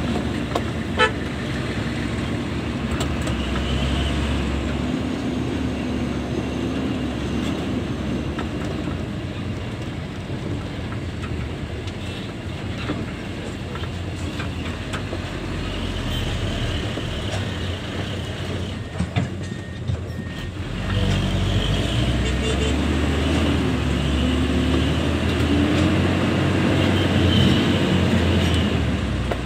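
Hino 260 JD dump truck's diesel engine running under load, heard from inside the cab while driving over a rough dirt haul road. After a brief dip about two-thirds of the way in, the engine note gets louder and climbs.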